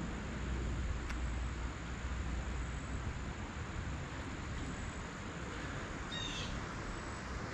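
Outdoor creekside ambience: a steady high-pitched insect drone over a low hiss, with a brief bird chirp about six seconds in.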